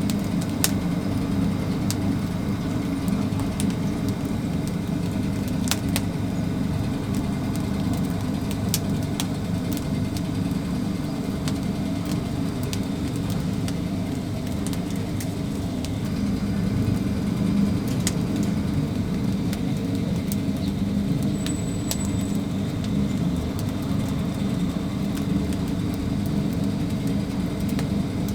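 A steady low mechanical hum with scattered sharp clicks and crackles.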